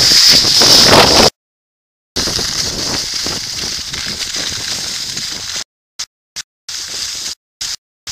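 Rushing noise of wind on the microphone and skis sliding over snow during a downhill run. It is loud and cuts out abruptly to silence several times.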